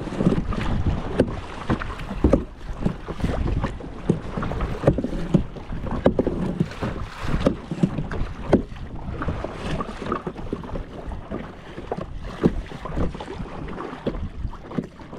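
Kayak paddling: paddle blades dipping and splashing in the water, with irregular sharp knocks, over a low rumble of wind on the microphone.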